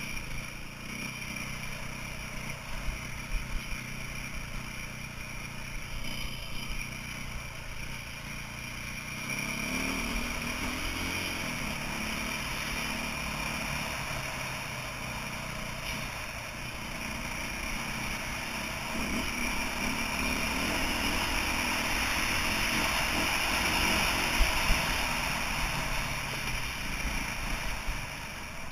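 2008 KTM 450 EXC's single-cylinder four-stroke engine running as the bike is ridden, its revs rising about nine or ten seconds in and the sound getting louder toward the end.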